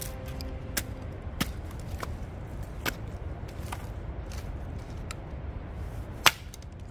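A series of sharp knocks or cracks at irregular intervals, roughly one every second, over a steady low rumble; the loudest comes about six seconds in. The tail of background music fades out in the first second.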